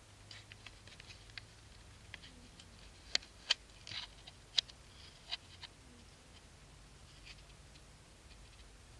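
Sleeping cat's faint, low snoring breaths every few seconds, under a scatter of sharp clicks and ticks that are loudest around the middle.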